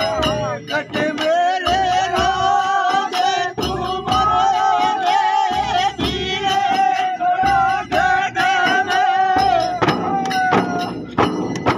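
Holi dhamal music: men singing a long, wavering melody over large chang frame drums beaten in a steady rhythm, with sharp jingly clicks running along. Near the end the drumming turns busier.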